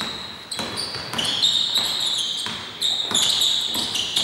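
Basketball sneakers squeaking repeatedly on a hardwood court in short, high chirps, mixed with the thuds of the ball bouncing and players' footfalls during live play.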